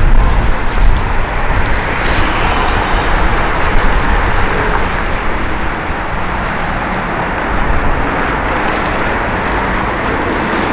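Wind buffeting the microphone with a low, gusting rumble, heaviest in the first second or so, over a steady rushing noise of the city street.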